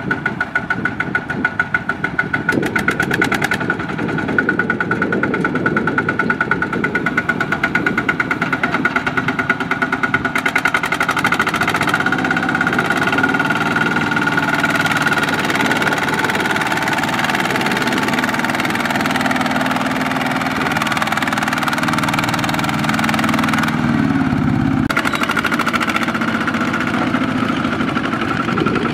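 Two-wheel walking tractor's single-cylinder diesel engine running with an even, pulsing beat, then running louder and steadier from about ten seconds in as it works under load, dragging a trailer of rice sacks out of mud.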